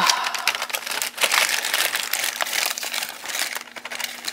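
Rustling and rummaging of objects being handled: a crinkling rustle full of small sharp clicks, over a faint steady hum.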